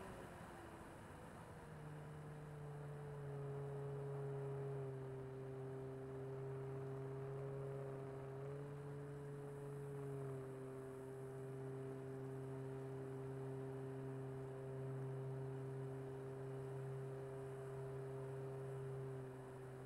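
Electric motor and propeller of a radio-controlled Corsair F4U model in flight, a steady droning hum whose pitch dips about a second in and shifts slightly now and then as the throttle changes.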